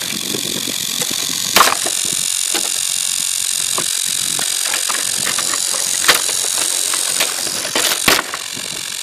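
A small electric motor, likely on the crashed RC plane, gives a steady high whine with hiss. It is broken by a few sharp clicks or knocks about a second and a half, six and eight seconds in.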